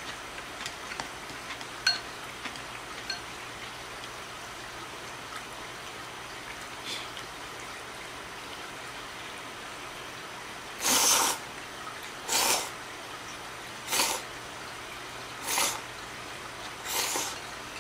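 A person slurping cold ramen noodles, five wet slurps in a row about a second and a half apart in the second half. Before that come a few light clicks of chopsticks against a ceramic bowl.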